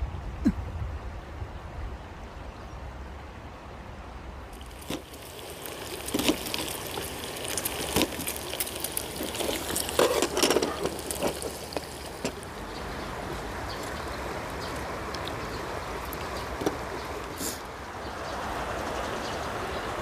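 Shallow rocky mountain stream flowing, a steady rush of water, with a few light clicks and knocks from about five seconds in.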